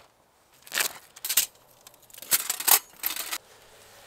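A folding metal pocket stove being unfolded and set up by hand: several short metallic clinks and rattles as its panels are handled and fitted together, the loudest a little past two seconds in.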